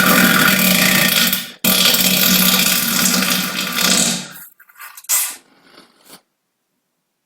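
Loud, buzzing farts: one long fart broken by a brief gap about a second and a half in and tailing off around four seconds, then a short one about five seconds in.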